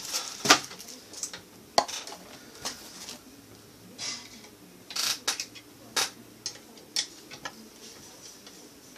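Plastic parts of a TaoTronics TT-AH0001 humidifier clicking and knocking as they are handled and taken apart: scattered sharp clicks, the loudest about half a second in, with another group of knocks between about five and seven seconds in.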